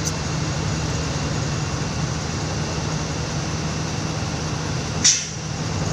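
Diesel engine of a container truck idling steadily, heard from inside the cab, with one short hiss about five seconds in.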